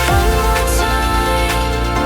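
Electronic background music with held synth notes, a deep bass and swishing sweeps, without singing.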